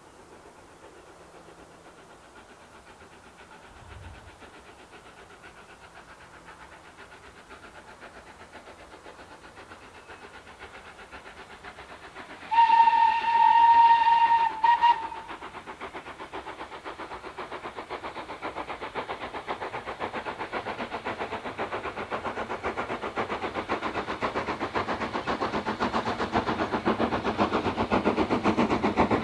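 LSWR S15 No. 506 steam locomotive approaching: its whistle sounds for about two seconds, a steady tone with a short break just before it ends, about halfway through. Its exhaust beat grows steadily louder as it draws near.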